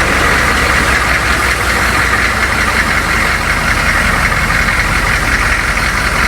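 Humvee's V8 diesel engine idling steadily.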